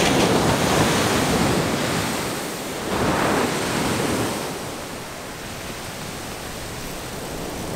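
Ocean surf rushing and washing up the beach, mixed with wind on the microphone. A wave swells up about three seconds in, then the rush eases off.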